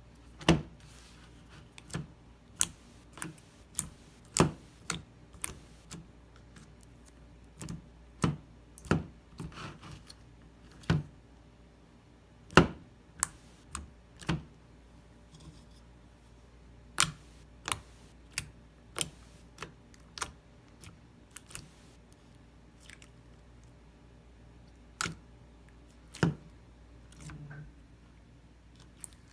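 Slime being handled and pressed, making sharp, irregular clicks and pops.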